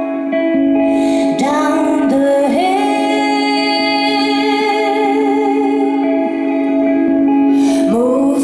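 Live song with a woman's voice singing long held notes that slide up into pitch, over electric guitar and a steady low sustained tone underneath. A new phrase begins with an upward slide near the end.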